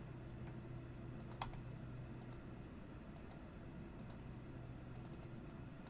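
Faint, scattered clicks from computer use at a desk, a few at a time at irregular intervals, over a low steady hum.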